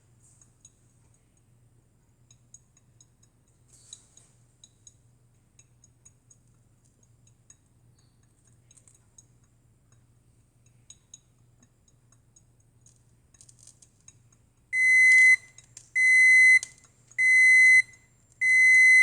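Cuisinart coffee maker beeping to signal that brewing is done: four loud, evenly spaced single-pitched beeps starting near the end, after a stretch of faint ticking.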